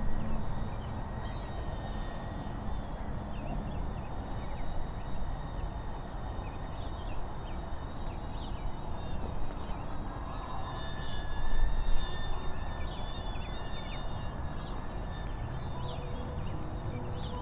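Outdoor ambience: low wind rumble on the microphone with many short, scattered bird-like chirps and calls, and a faint steady high whine underneath.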